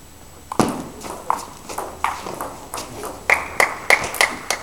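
Table tennis doubles rally: the celluloid ball clicking back and forth off rubber paddles and the table, about two to three hits a second. It opens with a heavier thump about half a second in, and the last several hits are sharper, with a short ring.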